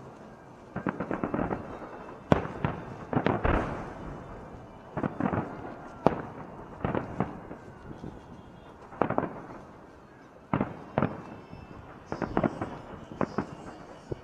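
Fireworks salute: a string of firework shell bursts, single bangs and quick clusters of crackling reports about every second, each trailing off in an echo.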